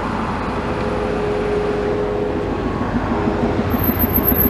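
Heavy vehicle engine running with a low rumble and a steady whine, growing slightly louder.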